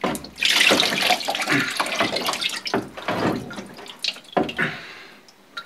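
Evapo-Rust solution streaming and splashing off a cast-iron Bridgeport rotary table base as it is lifted out of a barrel bath, then trickling and dripping away, dying down about four seconds in.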